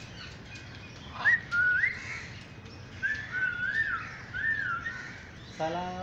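A run of clear whistled notes. Two quick rising whistles come about a second in, then a string of wavering, up-and-down whistles from about three to five seconds.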